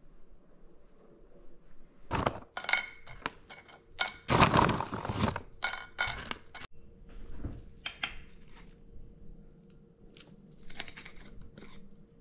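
Plastic cracker bag rustling and crinkling as crackers are taken out and laid on a dinner plate, with scattered clinks of crackers and cutlery against the plate.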